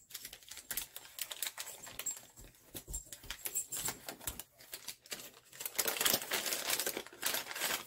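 Gift wrapping and a plastic bag crinkling and crackling as a shower steamer is unwrapped by hand, in a run of quick crackles that grows denser and louder over the last two seconds or so.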